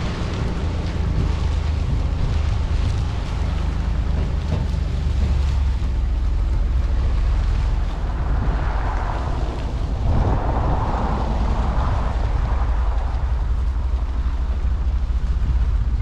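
Wind buffeting the microphone: a steady deep rumble with a hiss over it, swelling briefly about halfway through.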